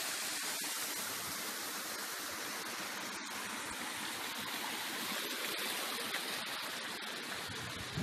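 Steady rush of water from a small waterfall cascading over rocks into a pool and running on down a boulder-strewn mountain stream.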